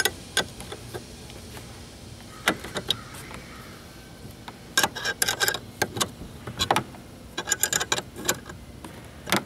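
11 mm metal wrench clicking and clinking against a bolt and the steel plate bracket as the nut is worked tight, in scattered sharp clicks that bunch into quick runs after the middle.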